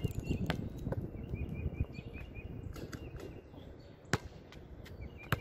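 A basketball bouncing on an outdoor hard court, a few bounces early, then spaced knocks with a loud one about four seconds in. A bird gives a quick run of about six short chirps near the middle and again at the end.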